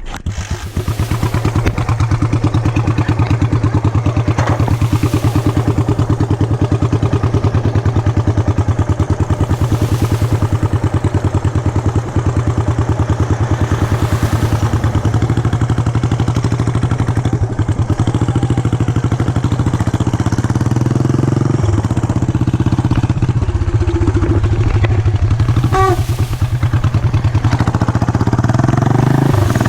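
Yamaha SR400's air-cooled single-cylinder four-stroke engine running, its separate firing pulses clearly heard, with the engine speed rising and falling in the latter half.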